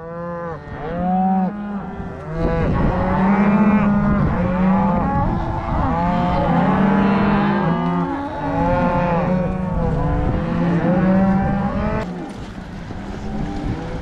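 A chorus of many overlapping animal calls, each a short rising-and-falling cry, over a steady low tone that shifts in pitch in steps. About twelve seconds in the calls give way to a plain rushing noise.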